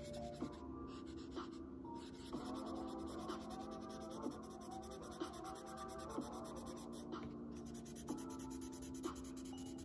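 Pencil strokes scratching on drawing paper as a portrait sketch is worked, over soft background music of held chords with a light tick about once a second.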